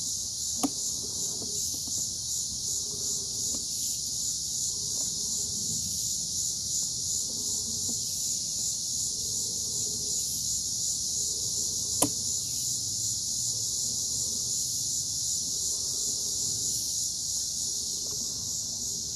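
Steady high-pitched insect chirring, like crickets, with a few sharp clicks, the loudest about twelve seconds in.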